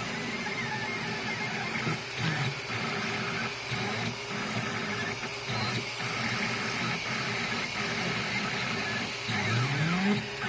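3D printer running a print: its stepper motors hum and buzz, changing note in short steps as the print head moves, with a rising whine near the end.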